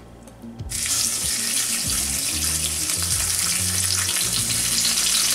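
Tuna steak dropped into hot oil in a cast-iron ridged grill pan, which bursts into a loud sizzle about a second in and keeps sizzling steadily.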